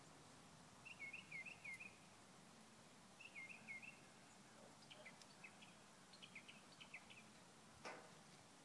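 Faint songbird calls: two short phrases of quick looping notes, about a second and three seconds in, then scattered short chips. A single faint click near the end.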